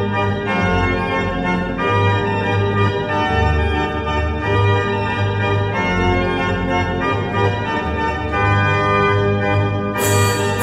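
Seventeenth-century Italian pipe organ playing a Renaissance dance, with sustained pipe notes and moving bass and upper lines. Near the end the sound turns much brighter as higher-pitched tone joins.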